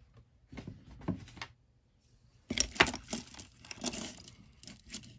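Stone-bead necklace being handled: the beads click and rattle against each other and the tabletop, with a louder clatter about two and a half seconds in.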